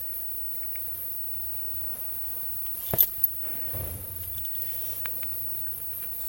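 A cat playing with a cardboard box: one sharp knock about halfway through, followed by a soft low scuffing, with a few faint light taps.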